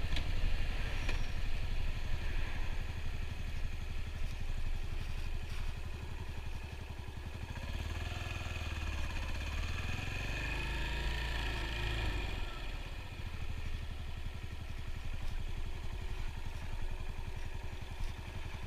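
Yamaha SR400's air-cooled single-cylinder four-stroke engine running steadily. It grows louder for a few seconds in the middle, its pitch rising and then falling, and settles back down.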